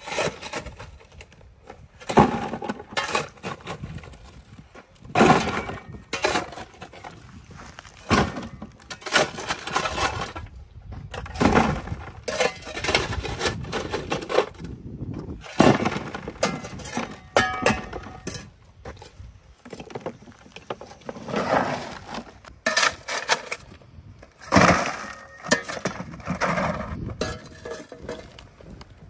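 Long steel bar striking and prying apart concrete blocks, with broken chunks of block clinking and clattering; irregular strikes, and rubble being picked up and dropped into a plastic bucket.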